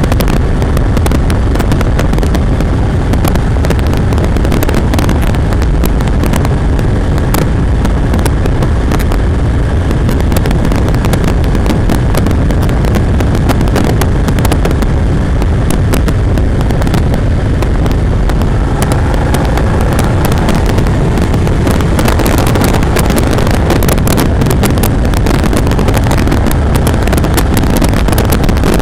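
Moto Morini motorcycle ridden at steady road speed, heard from an onboard camera: its engine running under a steady rumble of wind noise on the microphone, with rapid crackling from wind buffeting.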